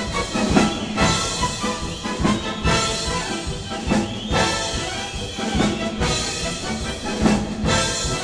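An orchestra with brass and drums plays lively dance music, with strong accented beats.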